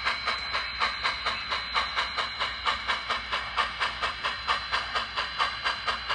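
SoundTraxx Tsunami sound decoder in an N-scale PRR J-1 2-10-4 model locomotive, playing steam exhaust chuffs through the model's small speaker. The chuffs are rapid and even, about five a second, over a steady hiss as the locomotive runs.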